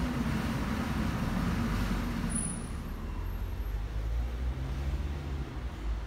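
A motor vehicle's engine droning nearby over a steady low rumble. Its pitch shifts lower partway through.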